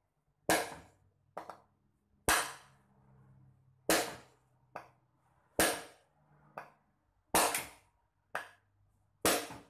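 A hammer striking the steel valve fittings on an LPG tank: six heavy metallic blows about every second and three-quarters, each ringing briefly, most followed by a lighter knock. The valves are permanently attached and do not budge.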